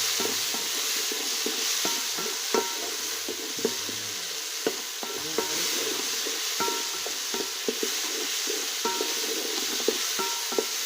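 Food sizzling in a cooking pot while a metal spoon stirs it, with irregular clinks and knocks of the spoon against the pot over a steady hiss.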